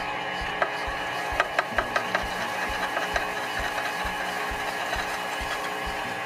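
Homemade mash mixer stirring grain into the mash tun: a steady mechanical hum with a soft knock about two to three times a second as the paddle turns, and scattered light clicks.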